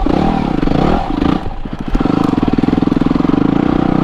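Yamaha WR250R's single-cylinder four-stroke engine revving unevenly, its pitch rising and falling. It dips and breaks up about a second in, then holds fairly steady.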